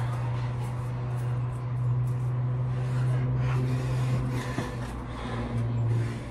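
A steady low mechanical hum, with a few soft footsteps.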